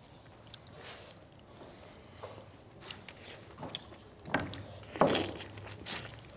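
Quiet, close-miked eating sounds: chewing and mouth noises of people eating chicken curry and dhido by hand, with a few sharper clicks and knocks about four to six seconds in.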